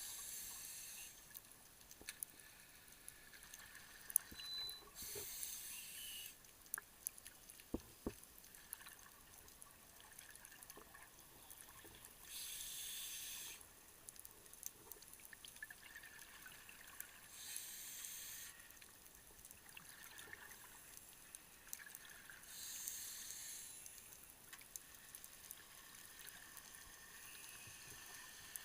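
Scuba diver breathing through a regulator underwater: a rush of exhaled bubbles about every five to six seconds, with fainter hissing between, and scattered sharp clicks.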